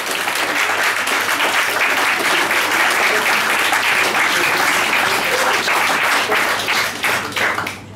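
Audience applauding, a dense patter of many hands clapping that thins out in the last half second.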